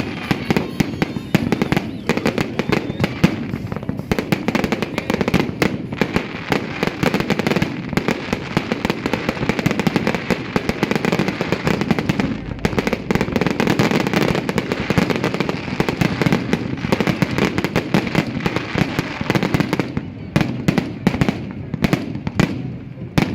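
New Year fireworks and firecrackers going off in a dense, continuous crackle of rapid bangs and pops. Near the end it thins out to more separate pops.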